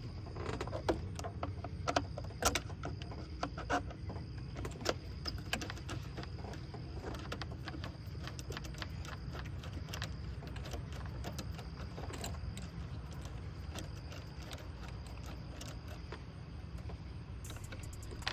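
Irregular clicks and clinks of hand tools and metal parts being handled while working on an engine's intake fittings, busier in the first few seconds and then sparser, over a steady low rumble.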